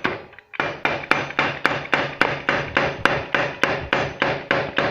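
Rapid, even hammer blows, about four a second, on a small knife set against a rivet of a motorcycle exhaust muffler, metal ringing with each strike, to knock the rivet head off so the muffler can be opened.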